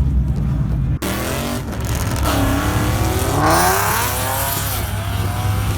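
Car engines revving with squealing tyres from cars doing donuts and burnouts. The sound breaks off abruptly about a second in, then carries on with rising and falling revs.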